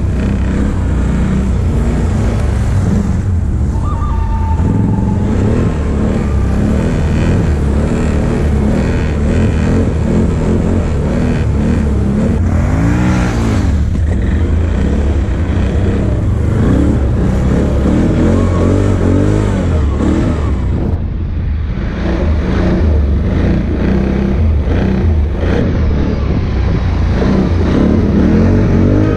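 Can-Am Outlander ATV's V-twin engine running hard as it is ridden, the revs rising and falling with the throttle, with one sharp rev up and back down about thirteen seconds in.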